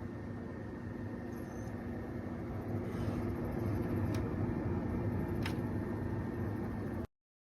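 Steady hum of a running desktop PC's fans, growing a little louder about three seconds in, with two sharp clicks about a second and a half apart; the sound cuts off suddenly near the end.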